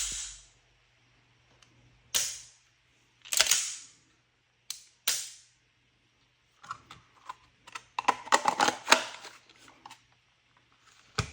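Airsoft pistol firing single shots: five sharp cracks with short decays over the first five seconds, the last two close together, then a flurry of small mechanical clicks and clacks from handling the gun, and one more shot near the end.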